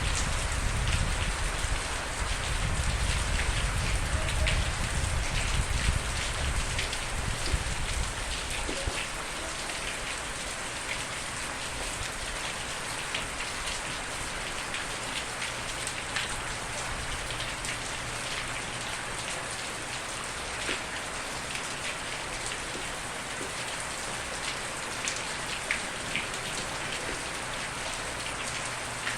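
Steady heavy rain, with individual drops ticking and pattering on a hard surface. A deep low rumble sits under the rain for about the first eight seconds, then fades.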